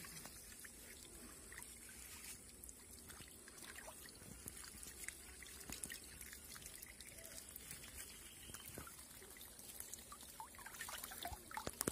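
Faint trickling and dripping of water draining through a lifted fishing net on a bamboo frame, with many small scattered taps and splashes.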